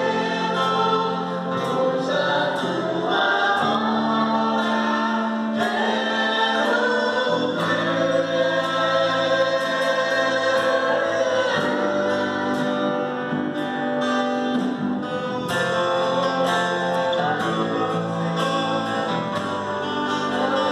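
Christian worship song: choir-like sung vocals with held notes over an instrumental accompaniment, running steadily with slow chord changes every few seconds.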